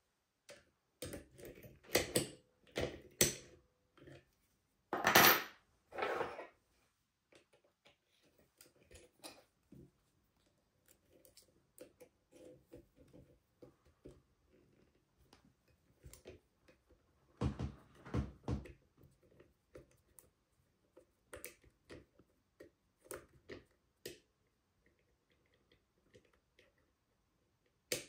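Metal clicks and rattles of lever-lock picking tools working a Morgan 5-lever sash mortice lock: a run of louder clatters through the first six seconds, then soft scattered ticks and scrapes, with another louder burst of clicks a little past the middle.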